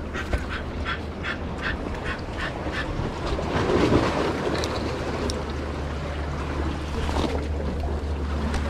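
A rapid series of short, harsh animal calls, about three a second, fading out about two seconds in, over water washing among rocks and wind on the microphone.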